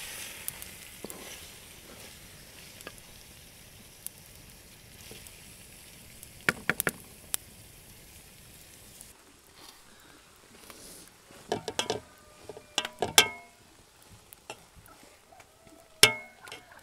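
Minced meat and green beans sizzling in a large pot while a wooden spatula stirs them, with a few clicks a little past six seconds in. In the second half a metal spoon knocks and clinks against the pot of cooked rice several times, the loudest knock near the end.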